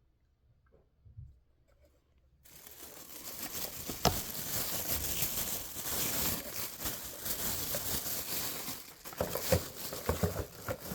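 Near silence at first, then packaging crinkling and rustling as a small box and its wrapping are handled and searched, with a sharp click about four seconds in.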